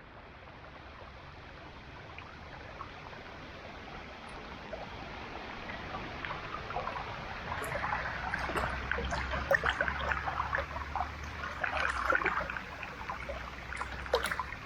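Floodwater flowing and splashing, fading in gradually over the first few seconds, with gurgling splashes from about halfway on.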